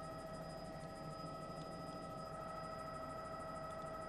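Steady whine of a news helicopter's cabin heard through the crew intercom: several steady high tones over a low hum, unchanging.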